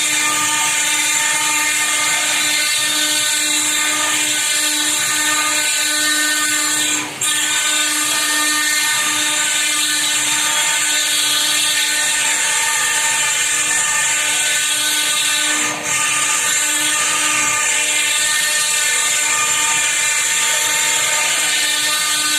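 CNC router spindle cutting into stone, a steady high-pitched whine with a hiss. It dips briefly twice, about seven and sixteen seconds in.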